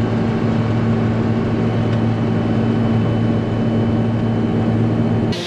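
Steady engine drone with a constant low hum, heard from inside a farm machine's cab; it cuts off abruptly near the end.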